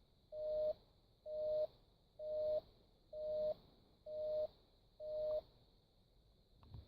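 VTech Tiny Touch Phone toy playing a busy-signal tone: six short, steady electronic beeps about a second apart.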